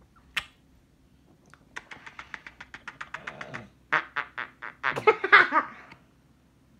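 Quick, even run of kissing smacks, about eight a second, then a few louder smacks and a short burst of voice about five seconds in.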